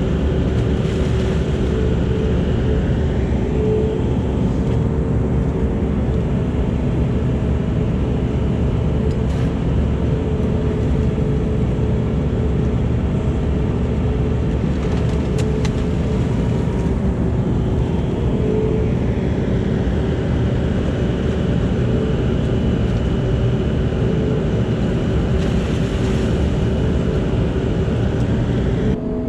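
Diesel engine of a CAT 308 mini excavator running steadily, with a higher whine that swells and fades a few times.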